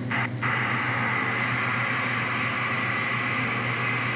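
CB radio receiver giving steady static hiss over a low hum on a quiet channel with no one transmitting, with a couple of brief dropouts right at the start.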